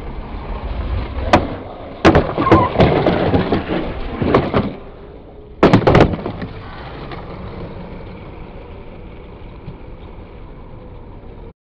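Skateboard on concrete: wheels rolling, a sharp pop about a second in, a scraping grind along a ledge for about two and a half seconds, then two loud slaps as the board lands around six seconds in. The wheels roll on steadily afterwards, fading toward the end.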